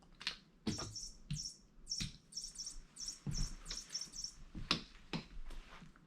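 A chirping toy bird for cats giving a run of short, high chirps, mixed with scattered knocks and taps as the cat plays with it.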